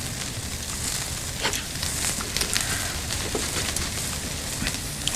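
Meat frying on a griddle: a steady sizzling hiss, with a few light clicks.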